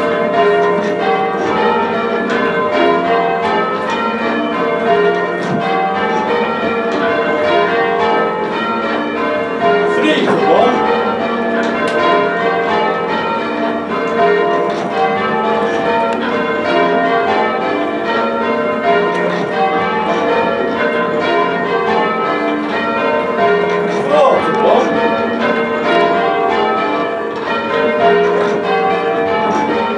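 A ring of six heavy church bells rung full circle in change ringing, the strokes following one another in a steady, continuous rhythm.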